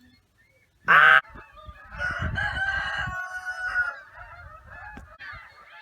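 Geese honking: one loud, short honk about a second in, then a longer run of overlapping honks.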